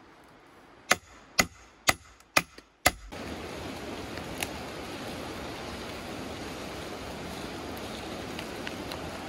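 Five sharp hammer blows on the back of an axe set into a log, about two a second, driving the blade into the wood. Then a steady rushing noise takes over.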